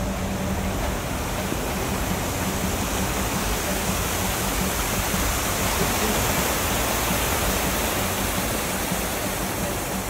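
A small mountain stream cascading over rocks: a steady rush and splash of water.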